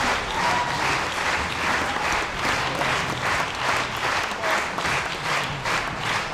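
Audience applauding in a theatre, the clapping at times falling into a steady beat of about three claps a second.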